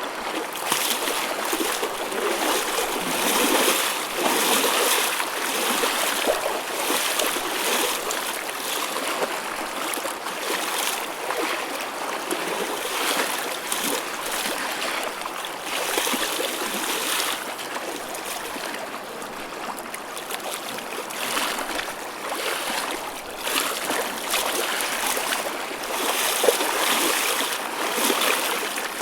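Choppy ocean waves washing and splashing continuously, rising and falling in gentle swells.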